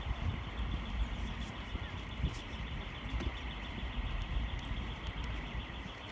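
Outdoor ambience: a steady low rumble with a fainter hiss above it and a faint, evenly repeating high patter, with no single clear event standing out.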